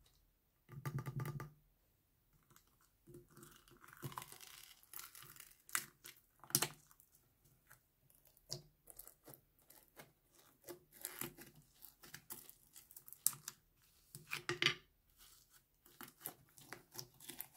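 Hands pressing and squishing clear slime mixed with foam beads and sprinkles, making sticky crackles and pops in irregular bursts, the loudest about a second in.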